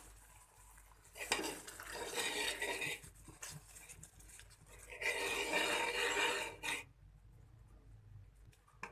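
Atta halwa being scraped out of a cooking pan onto a plate: a utensil scraping and clinking against the pan in two spells of about two seconds each.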